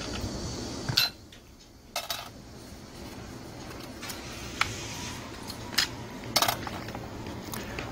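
About half a dozen sharp metallic clicks and clinks of a T-handle hex wrench on steel bolts and small metal engine parts, as the carburetor mounting piece is unbolted from a Honda GX35 four-stroke engine.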